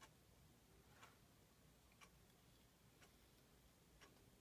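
Near silence: room tone with a faint, regular tick once a second.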